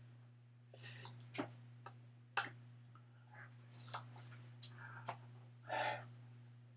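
Faint steady low electrical hum with scattered soft clicks and a few brief breathy rustles, the loudest about six seconds in, from a person moving close to the microphone.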